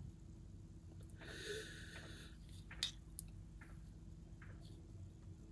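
Faint sounds of someone smoking: a hiss lasting about a second, then two sharp clicks about half a second apart.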